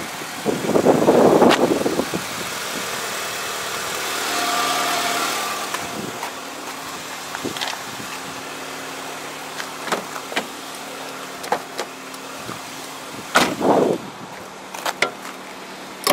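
2001 Acura EL's 1.7-litre D17 four-cylinder engine idling steadily, heard from outside the car. Wind buffets the microphone in the first two seconds, and a few light clicks and knocks come later, one louder knock near the end.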